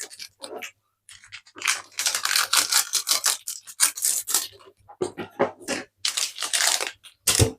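Food packaging being handled, rustling and crinkling in two spells of rapid crackling with a short pause between.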